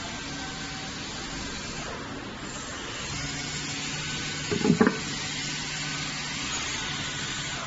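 Steady hiss and hum of woodworking factory machinery running, with a brief cluster of knocks a little past halfway.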